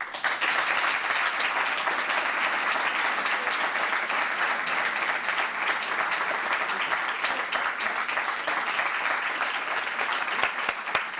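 Audience applause, breaking out suddenly and going on steadily as a dense crackle of many hands clapping.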